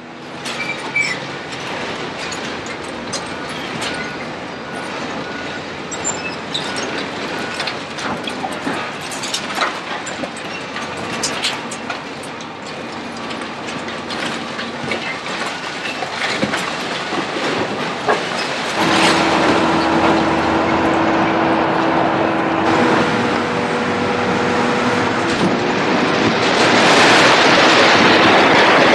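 Concrete building demolition by heavy machinery: chunks of concrete and rebar cracking, knocking and clattering down as an excavator's demolition grapple tears at the wall, over the machines' engines. A steady engine drone comes in about two-thirds of the way through, and the noise is loudest near the end.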